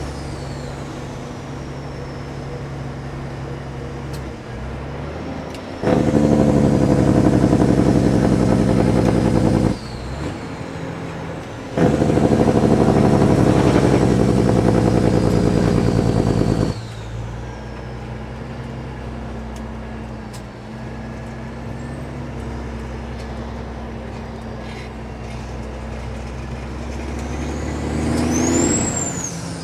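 Kenworth W900 diesel tractor with loud exhaust pipes, pulling a loaded heavy-haul trailer. Its engine runs at a steady drone, then gets loud twice under throttle, about 6 s and 12 s in, for roughly four to five seconds each, with a short dip between that fits a gear shift, before it settles back to the drone. A brief high whistle rises and falls near the end.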